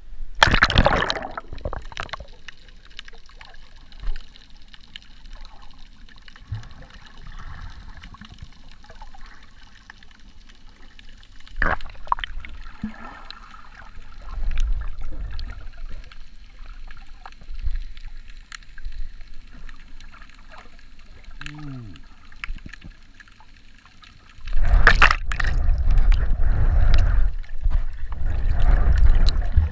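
Water sounds heard through an action camera under water: a loud splash about half a second in as it goes under, then muffled gurgling with scattered clicks. About 24 seconds in a loud low rushing and splashing starts, from the swimmer kicking just under the surface.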